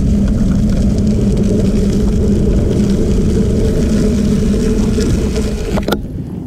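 Steady rolling rumble of tyres on a crushed-gravel trail, with wind rushing over the microphone. It fades as the ride slows for a road crossing, and there is a sharp click near the end.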